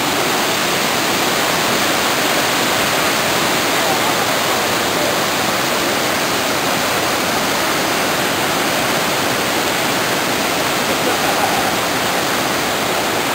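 Vachiratharn waterfall's water pouring down close by, a steady, loud rushing noise with no let-up.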